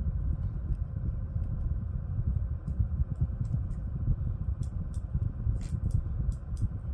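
Light scattered clicks and crackles of electrical tape being wrapped around a spinning-reel spool as line backing, growing more frequent in the second half, over a steady low rumble.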